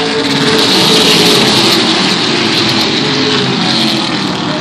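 A pack of race trucks running past on a short oval track, their engines blending with a loud rushing noise that swells to a peak about a second in and then eases off.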